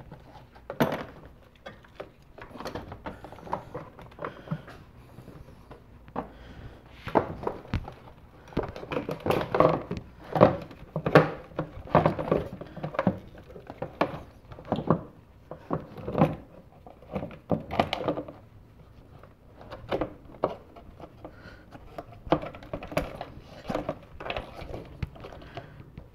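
Irregular plastic knocks and thunks as a Nissan Versa's air filter housing is pressed down into place and its rubber intake tube is moved about. The knocks come thickest and loudest around the middle.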